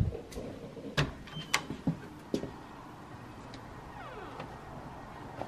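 A glass door being unlatched and opened: a thump, then several sharp clicks and knocks in the first two and a half seconds, followed by a steady faint hiss.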